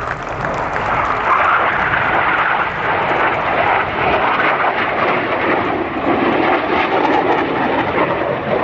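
Jet noise from Northrop F-5 fighter jets passing overhead in an aerobatic display, their twin turbojets making a loud, steady roar that builds over the first second and then holds.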